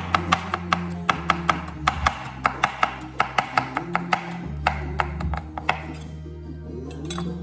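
Chef's knife chopping celery stalks on a wooden cutting board: a quick, even run of sharp chops, about four a second, that thins out near the end. Background music plays underneath.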